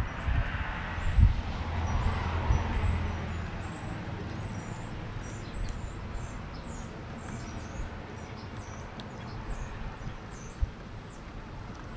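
Small birds chirping in the background: many short, high-pitched chirps scattered throughout. Over the first three or four seconds a low rumble, such as a passing vehicle makes, fades away, and a few faint sharp taps come later on.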